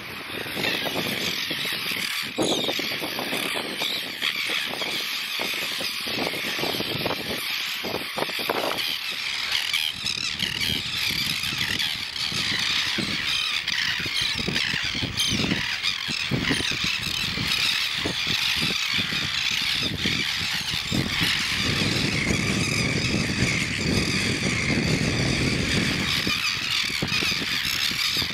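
Nesting colony of birds crying out continuously, many overlapping calls at once: the birds are screaming at people walking among their nests.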